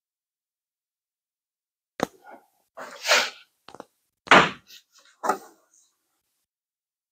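GMC 2500 HD pickup truck bed being shoved sideways by hand on the frame to line up its bolt holes. A sharp click about two seconds in, then several short knocks and scrapes, the loudest about halfway through.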